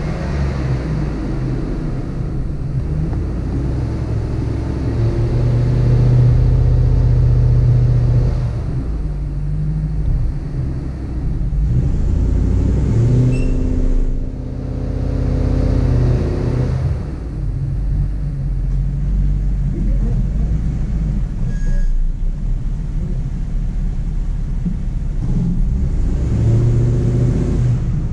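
Hummer H2's V8 engine running at low speed, picked up close over the hood with a heavy low rumble. It is given more throttle for a few seconds at a time, around five seconds in, again around twelve seconds and near the end, and the pitch rises with each push.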